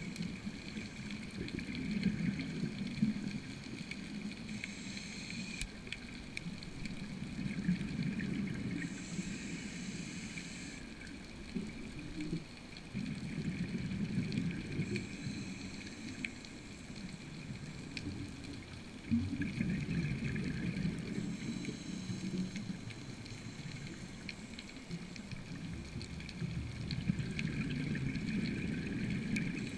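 Muffled underwater water noise with a gurgling surge of bubbles about every six seconds.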